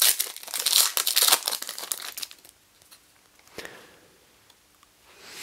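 Plastic foil wrapper of a Donruss basketball card pack crinkling and tearing as it is ripped open by hand. The dense crackling lasts about two seconds and then stops.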